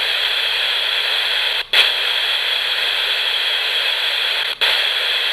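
FM radio with no antenna hissing white-noise static as it scans back and forth between two frequencies. The hiss cuts out sharply twice, about three seconds apart, as the scan jumps, with a brief louder burst after the first gap.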